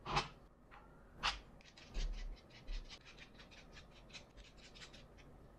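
Bolted plywood linkage arm handled on a workbench, its parts and pivots knocking: a few sharp knocks in the first second and a half, then a quick run of light clicks and taps.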